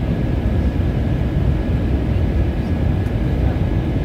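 Steady cabin roar of a jet airliner in flight, engines and rushing air, heaviest in the low end, with a faint steady high whine.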